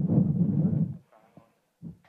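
Microphone handling noise from a body-worn microphone being fitted on the speaker: a loud low rumble of rubbing and bumping for about a second, then a faint click and a short bump near the end.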